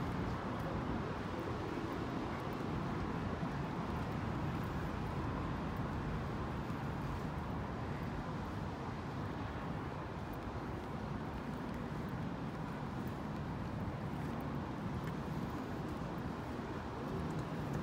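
Steady city traffic noise mixed with falling rain: a constant road hum with no single vehicle standing out.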